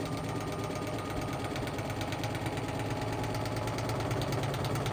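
Whirlpool washing machine loaded with heavy bricks, running with a steady hum and a rapid, even rattle of knocks from inside the drum.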